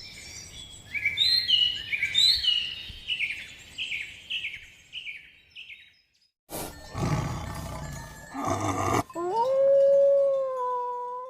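A run of a dozen or so short, high, falling chirps that fade out. After a cut come a few noisy bursts, then a cat's long, drawn-out meow that rises at the start and is held steady for about two seconds.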